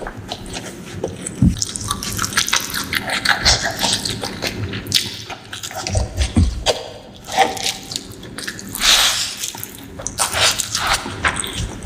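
Close-miked wet chewing of fish curry with rice and gravy: many quick, irregular clicks and squishy mouth sounds.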